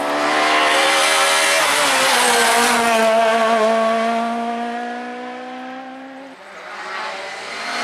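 Rally car passing at speed on a stage, its engine note held high at full throttle. The sound swells as the car goes by and fades away after about six seconds. Engine sound rises again near the end.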